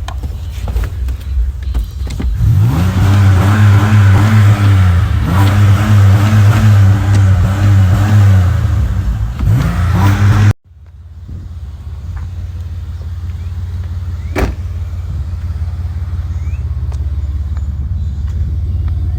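2008 Chevy Impala LS's 3.5-litre V6 through a Flowmaster muffler and chrome-tipped tailpipe: idling, then revved and held from about two seconds in, the pitch rising and falling. About halfway through the sound cuts off suddenly and a steady idle rumble comes back, with a single sharp click a few seconds later.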